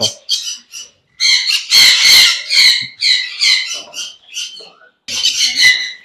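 Hagoromo budgerigars in an open nest box giving a run of short, harsh, high-pitched squawks, a dozen or so with brief gaps.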